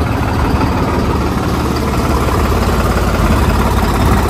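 Tractor diesel engine running steadily at low speed, a dense even low pulsing.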